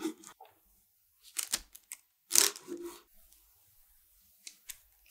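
A knife cutting down through the edge of a chocolate sponge cake: a few short crisp scraping and crunching strokes as the blade saws through the sponge and reaches the parchment paper beneath, the loudest about halfway through.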